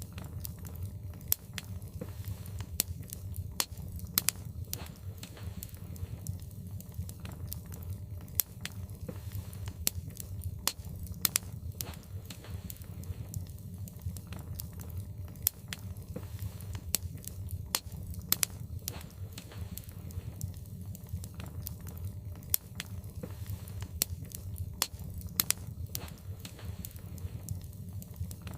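Wood logs burning in a fireplace: frequent irregular sharp crackles and pops over a steady low rumble.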